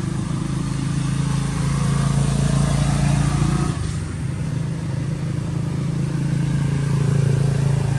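Steady low hum of a running engine under a broad noisy rush, dipping slightly about halfway through.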